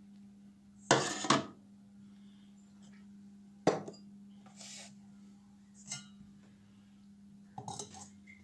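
Glass bowl and steel mesh strainer being handled on a table, giving a few separate clinks and knocks of glass and metal, the loudest about a second in and another near four seconds, over a faint steady hum.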